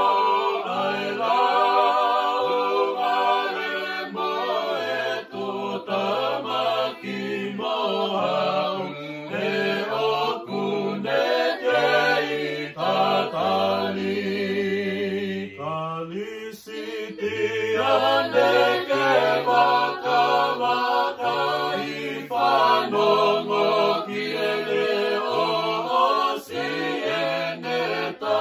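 Choir singing a Tongan hymn in several-part harmony, with slow held notes over a bass line.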